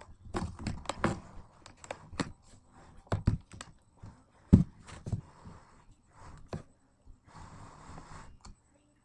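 Irregular thumps, knocks and rustling as a small dog humps a plush toy pressed against the camera, the loudest knock about four and a half seconds in. Near the end comes about a second of soft rustling before it goes quiet.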